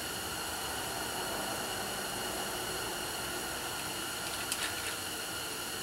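Steady background hiss and hum with no speech, and two faint small clicks about four and a half seconds in.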